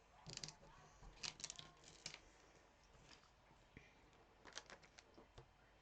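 Faint crackling clicks and rustles of small adhesive vinyl pieces being picked off their backing sheet and handled, in three short clusters near the start, a second or so in, and near the end.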